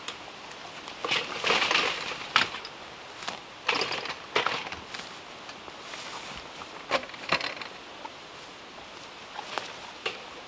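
Rustling through grass and undergrowth with a few short knocks and clunks as a chainsaw and gear are handled at a metal garden cart; the chainsaw is not running.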